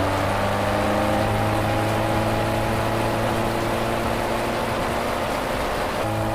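Honda CB1300 Super Bol d'Or's 1,284 cc water-cooled inline-four engine idling steadily through its exhaust, with a small change in engine note near the end.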